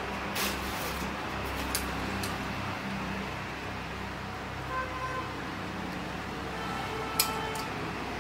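Steady background noise with a low hum and faint street traffic, with brief faint horn-like toots about five and seven seconds in. A few light clicks come from the wooden clothes hangers being handled.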